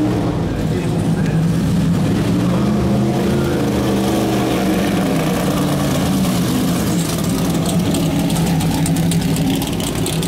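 Race car V8 engines running at low speed with a deep, steady burble. In the last few seconds the 1972 Greenwood Corvette's ZL1 big-block V8 passes close through its side exhausts, with a rapid crackle over the burble.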